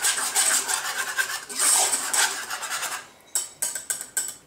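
Wire whisk scraping and rattling against the sides and bottom of a small metal saucepan while stirring a thick béchamel sauce with parmesan. The scraping stops about three seconds in, followed by a few separate clicks.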